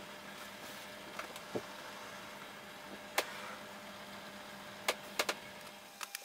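Metal lathe running, turning an aluminium bar, with a steady motor hum. Several short sharp clicks come through, three of them close together about five seconds in.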